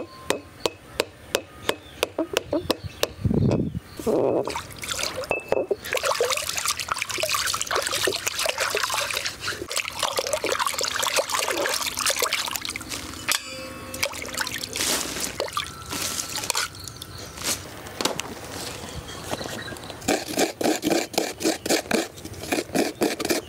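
Sharp wooden knocks, about two a second, as a mallet taps the wooden handle into the stone roller of a traditional grinding stone. Then water sloshing and splashing as a hand scrubs and rinses the stone grinding bowl. Near the end, quick rhythmic scraping strokes of fresh coconut on a hand coconut scraper.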